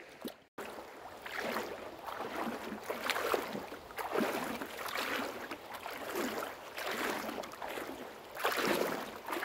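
Footsteps over river gravel and pebbles: an uneven run of scrunching steps, with the river's rush faintly behind.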